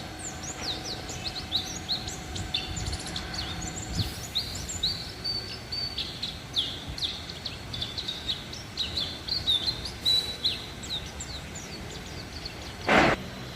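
White-eyes (pleci) twittering: a quick, busy run of short high chirps and flicking notes. A brief loud thump or rustle comes near the end.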